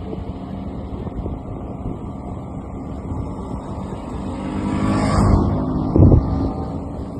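A motor running steadily with wind noise. It swells to a rushing peak a little after five seconds in, and a heavy thump comes about six seconds in.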